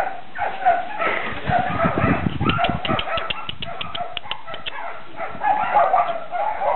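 Several dogs barking and yelping over one another, with a quick run of short high chirps in the middle.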